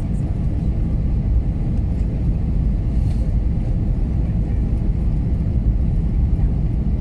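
Steady low rumble of an Airbus A321neo airliner, heard from inside the passenger cabin.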